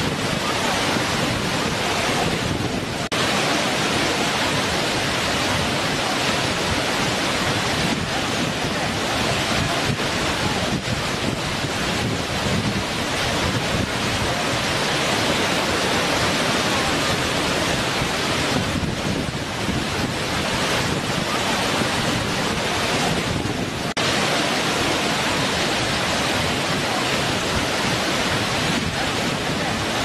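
Waterfall rushing over rock: a steady, even rush of falling water, with a couple of brief dips in level.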